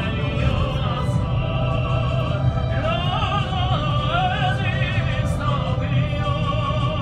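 An opera aria sung in a trained classical voice with wide vibrato, the sustained notes swelling strongest about three to five seconds in. Under it runs the steady low rumble of the commuter train carriage moving.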